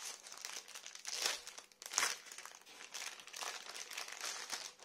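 A rolled diamond-painting canvas in its clear plastic sleeve crinkles as it is unrolled and flattened by hand. Louder crackles come about a second and two seconds in.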